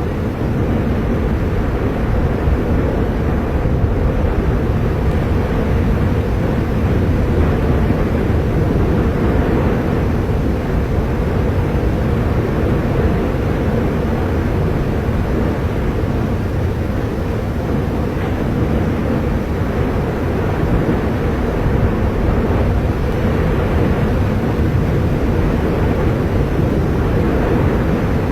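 Erupting volcano giving off a continuous deep rumble that holds steady throughout.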